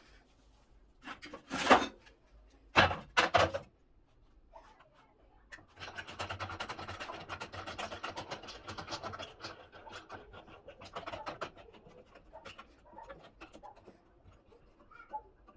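Handling and assembly noises from miter saw parts: two loud knocks about a second apart near the start, then several seconds of rubbing and scraping with rapid clicks, fading to scattered small clicks.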